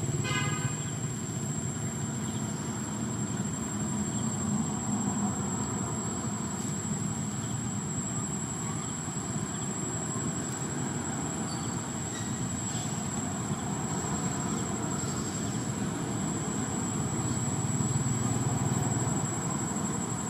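Steady outdoor background rumble with a continuous high, thin insect drone over it. A brief high-pitched call sounds just after the start.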